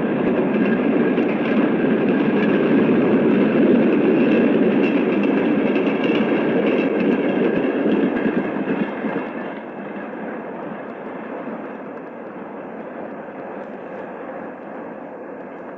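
Union Pacific gas turbine locomotive and its train going by at high speed, a loud, continuous rush of train noise with a faint steady whine. It drops away sharply about nine or ten seconds in as the train recedes, then goes on more quietly.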